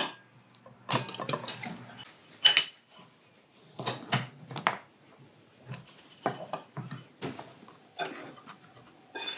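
Kitchen clatter: a series of clinks and scrapes as a glass storage jar's lid is handled and sugar is scooped out, then a metal utensil scraping and tapping in a mixing bowl.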